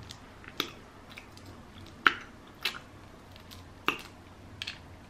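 Cooked shrimp being peeled by hand close to the microphone: about six sharp cracks of shell breaking, scattered over a few seconds, the loudest about two seconds in, with soft wet squishing between.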